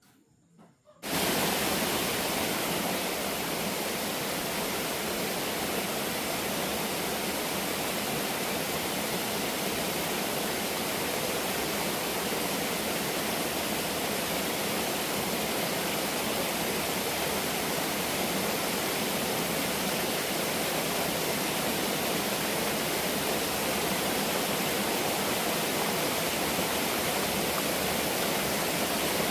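Waterfall rushing: a loud, steady, unbroken roar of falling water that cuts in abruptly about a second in.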